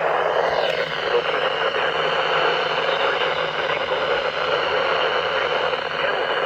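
Radio receiver static: a steady hiss with no program audio, with a brief downward-sweeping whine just under a second in.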